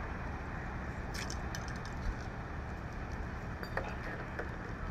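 Steady traffic noise from the freeway, with a few light metallic clinks about a second in and again near the end.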